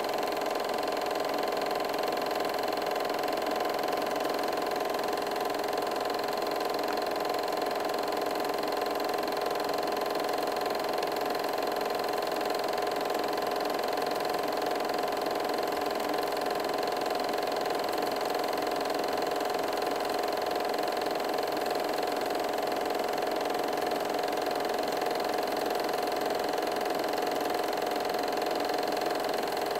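8mm film projector running steadily, its motor and film mechanism making a continuous, unchanging mechanical hum.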